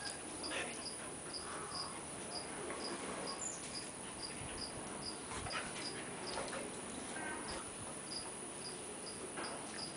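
Faint rustling and scuffling of a red heeler pawing at a schnauzer on grass. Under it an insect chirps steadily at a high pitch, about two chirps a second.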